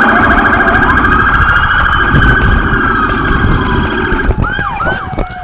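Loud electronic siren with a rapidly pulsing, warbling tone. About four and a half seconds in, the warble stops and gives way to a few quick rising-and-falling whoops.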